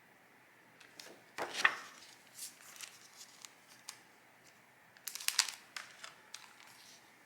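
Stationery or packaging being handled by hand: short crinkling and rustling with light clicks and taps. The loudest bursts come about a second and a half in and again around five seconds in.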